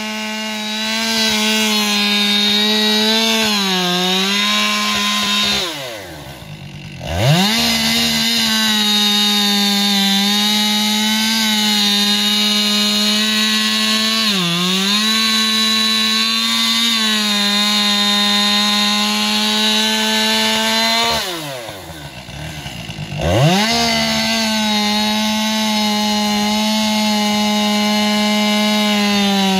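Two-stroke chainsaw engine held at full throttle with barely any load, sitting at a steady high pitch against its rev limiter, with a couple of brief small dips. Twice it drops off throttle toward idle and then revs sharply back up to the limit. Whether a saw should run on the rev limit this much is the owner's own question.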